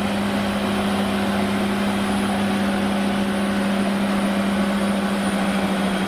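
Caterpillar D6R crawler bulldozer's diesel engine running at a steady, unchanging pitch.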